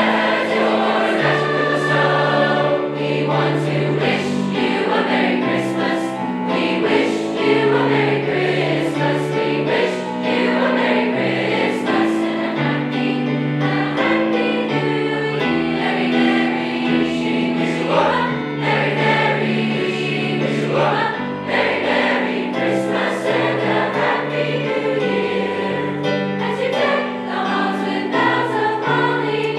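High school choir singing a Christmas song in several-part harmony, with held chords that change throughout.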